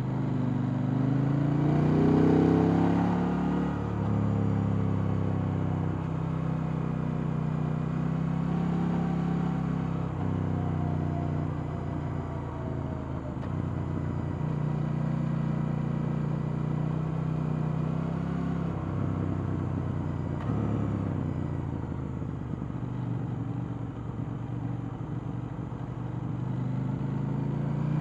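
KTM 890 Duke R's stock 890 cc parallel-twin engine heard on board while riding. It revs up over the first couple of seconds, drops back, then runs at varying, mostly moderate revs with gentle rises and falls.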